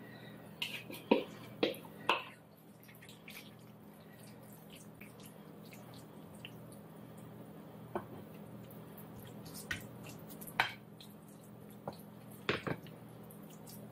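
Wooden spoon scraping potato salad out of a large mixing bowl into a glass serving dish: three sharp knocks against the dishes one to two seconds in, then scattered single taps and scrapes through the rest. A steady low hum runs underneath.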